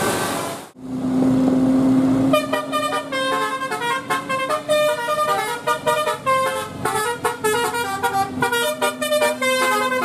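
Indonesian 'telolet' multi-tone bus horn playing a fast, jingling melody of short stepped notes over a steady low hum. The melody starts about two seconds in. Before it, a moment of passing-traffic noise cuts off abruptly.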